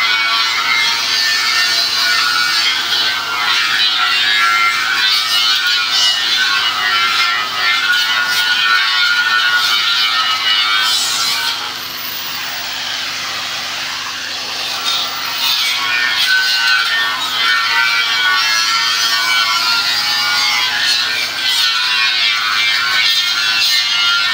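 Compressed-air paint spray gun hissing steadily as it sprays paint, dropping quieter for about three seconds near the middle.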